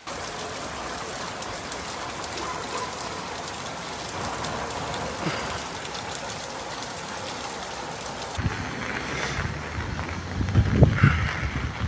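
Steady hiss of rain falling on a flooded street. About eight seconds in, the sound changes to a louder low rumble, with several thumps near the end.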